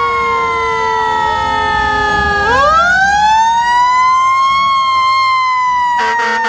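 Fire engine sirens sounding together. One winds slowly down in pitch throughout, while a second sweeps up in a long wail about two and a half seconds in, peaks and begins to fall. A harsh, buzzy horn tone cuts in near the end.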